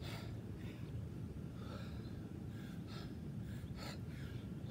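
A man breathing hard and gasping for air, several heavy breaths: winded from a set of burpees and sprints.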